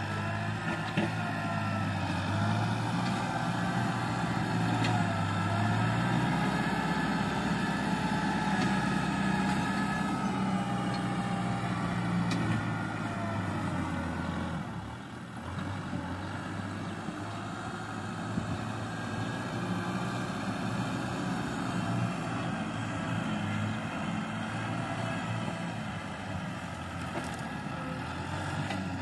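Kubota M6040 tractor's diesel engine running steadily as the tractor works the field with its front blade and disc harrow. It is loudest in the first half, dips briefly about halfway through, then carries on a little quieter.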